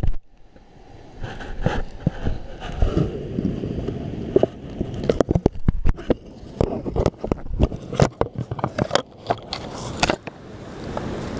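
Handling noise on a GoPro Hero 3 as a long-tailed macaque carries it off: irregular knocks, scrapes and crackles of hands, fur and leaf litter against the camera. After about ten seconds the knocks thin out into a steadier rustle.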